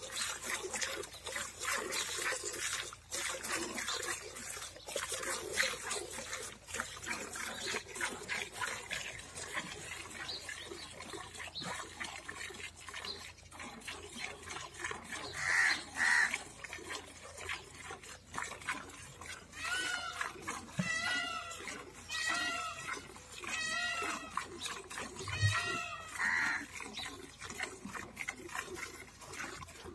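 Milk squirting by hand from a cow's teats into a steel pail: a quick, steady rhythm of short squirts. In the second half a string of short, high calls repeats several times.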